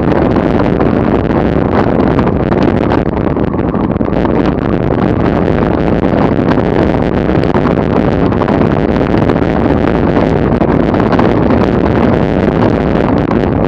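Steady rush of wind buffeting the camera microphone at about 30 mph, mixed with tyre noise on the road surface.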